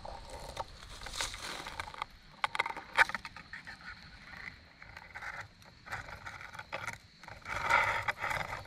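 Footsteps scuffing and crunching on a rocky hiking trail, uneven and irregular.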